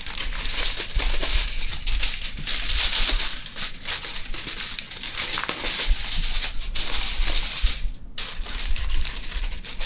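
Aluminum foil being crumpled and folded by hand, a continuous crinkling and crackling with a brief pause near the end.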